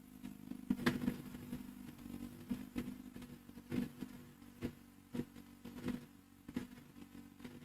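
Motorcycle engine idling faintly: a steady low hum with uneven soft pulses.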